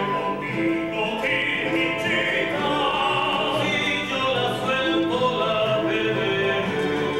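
Andean folk ensemble playing live: voices singing over acoustic guitars and wooden flutes.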